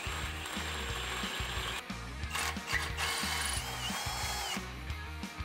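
Cordless drill running a 3/8-inch bit up through the steel frame rail of a Jeep Gladiator. The drilling sound changes about halfway through, under background music with a steady beat.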